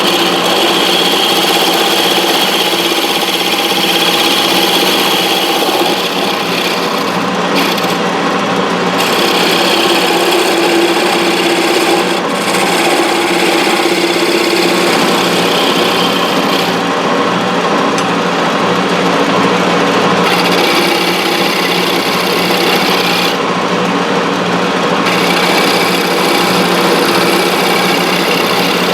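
Wood lathe running while a long-handled turning tool cuts a spinning wooden finial: a steady motor hum under a hissing cut that drops away a few times as the tool comes off the wood.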